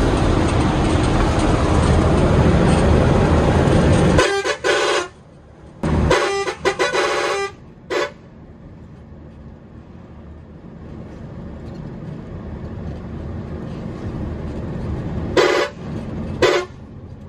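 A vehicle horn honks in a series of short pitched blasts: a few about four to eight seconds in and two more near the end, over steady road and engine noise. The first four seconds are filled with a loud rushing noise.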